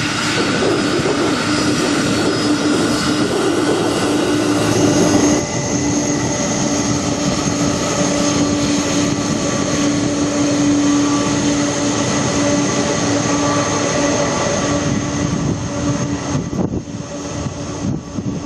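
Boeing 747-400F freighter's four turbofan engines running loud at takeoff power: a dense jet noise with a steady low hum and a high fan whine. The whine changes about five seconds in, and the sound wavers near the end.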